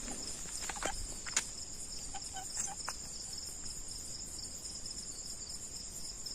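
Steady high-pitched chorus of chirping insects, with a few faint clicks and rustles in the first three seconds.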